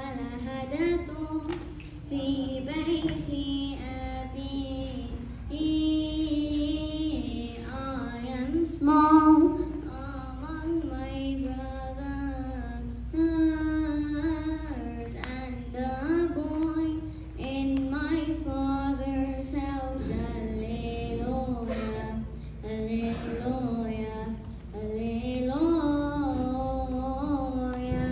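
Children singing a church hymn together, a single melody line held and moving phrase by phrase.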